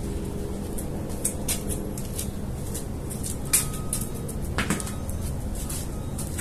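Plastic laundry basket full of clothes being carried and set down, with a few short knocks and clicks from the basket and its handling over a steady low rumble.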